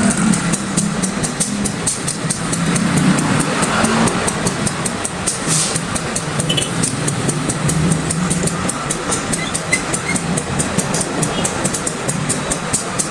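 CC 201 diesel-electric locomotive running with a steady low engine hum, over a fast, even ticking.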